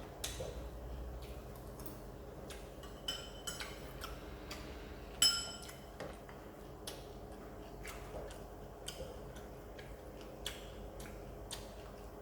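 Close-up eating sounds: bites and chewing of crunchy deep-fried fish, a scatter of sharp crackles and clicks. About five seconds in comes one louder, ringing clink, a utensil against a dish or glass.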